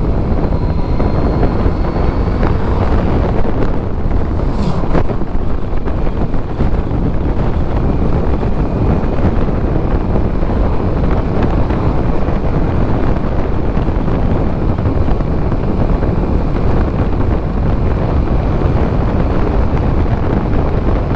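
Steady wind rush on the microphone from a motorcycle riding at a constant pace, with the Kawasaki Z900RS's inline four-cylinder engine running underneath.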